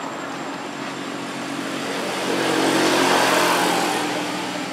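A motor vehicle passing by: engine hum and road noise swell to a peak about three seconds in, then fade away.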